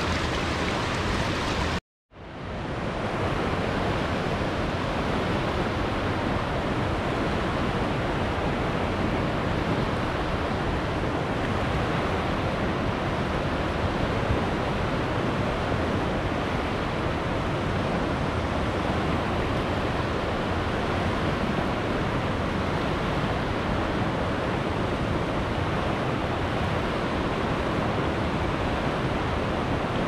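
Steady rush of river water flowing fast. About two seconds in it cuts out to silence briefly and fades back in.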